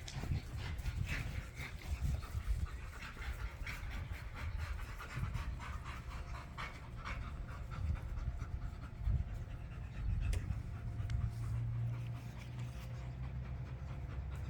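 A dog panting hard after play, a quick run of repeated breaths.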